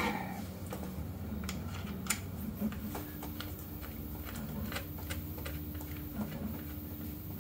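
Hand screwdriver turning a screw into the hinge of a 3D-printed rod holder clamp: faint, scattered light clicks and ticks.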